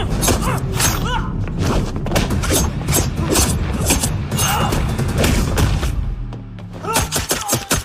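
Film fight-scene soundtrack: a fast run of punch and kick impact sound effects over a low background score. About six seconds in the hits let up over a held low tone, then a few more strike near the end.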